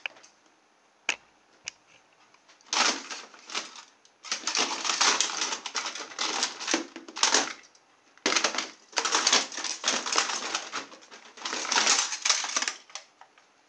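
Hard plastic radio-control transmitters clattering and knocking against each other as they are rummaged through in a box. A couple of single clicks come first, then long runs of busy clatter with short pauses.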